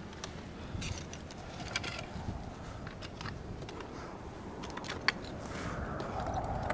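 Metal ice tool picks clicking and scraping on rock in an irregular series of sharp clicks, one louder about five seconds in, over a low steady rumble.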